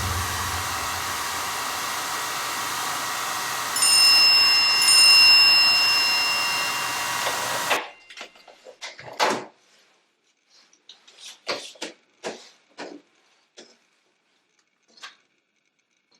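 Hair dryer running with a steady blowing hiss and a high whine, louder for a few seconds midway, then switched off suddenly about eight seconds in. Scattered light clicks and taps follow.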